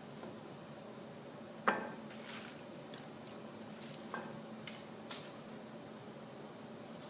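A few scattered knocks and clicks of framing lumber and hand tools being handled and set down on a workbench, the sharpest about two seconds in.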